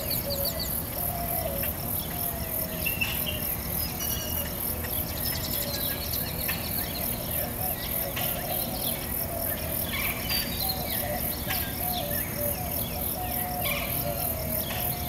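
Insects chirping in a steady, fast, even pulse, with scattered short higher chirps over it.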